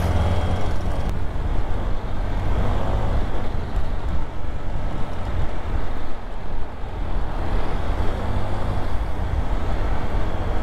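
Motor scooter riding at road speed in traffic: engine and road noise with a steady low rumble.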